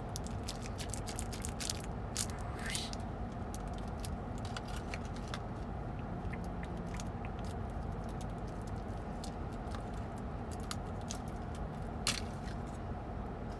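Steady low rumble of a car's cabin, with scattered light clicks and crinkles of plastic toy packaging being handled and a sharper click near the end.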